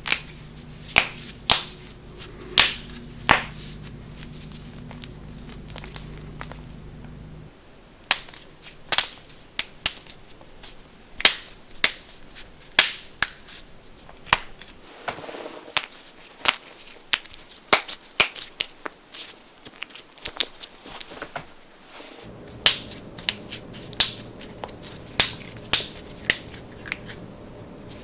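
Knuckles cracking: an irregular run of sharp pops, several a second, thinning out for a few seconds early on before picking up again. A low steady hum runs under the pops at the start and again near the end.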